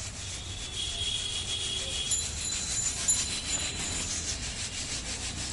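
Peanuts in their shells rattling and rustling in a flat bamboo winnowing tray as it is shaken back and forth, while sand sifts through the weave. It keeps up a steady rhythmic scraping.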